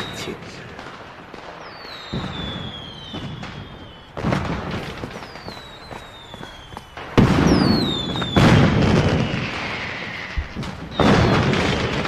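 Aerial fireworks going off: about five loud bursts, each followed by crackling, with whistling shells falling in pitch between them. The loudest bursts come about two-thirds of the way through.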